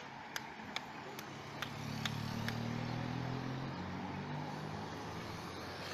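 Cars driving past at low speed, their engine hum building about two seconds in and then easing off. Over the first couple of seconds there are sharp clicks, about two and a half a second, that fade out.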